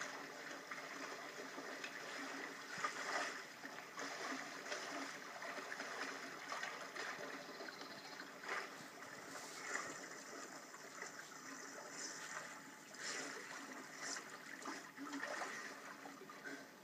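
Lake water sloshing and splashing around a swimmer, with irregular small splashes every few seconds.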